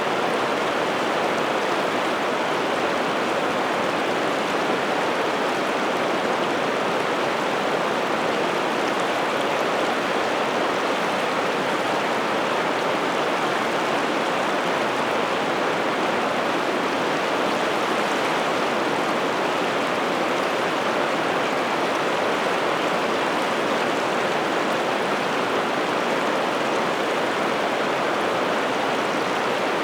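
River water rushing steadily, an even, unbroken sound of fast-flowing water.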